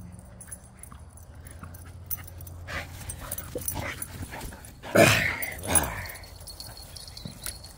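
Dog giving two short whining yelps, falling in pitch, about five seconds in, the first the louder, after a few seconds of light scuffling.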